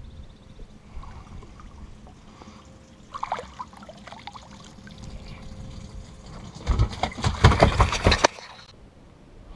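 An arrowed fish splashing at the water's surface as it is hauled in on a bowfishing line, about three seconds in. Then, near the end, more than a second of loud thrashing, slapping and splashing as it flops in a boat's water-filled fish hold.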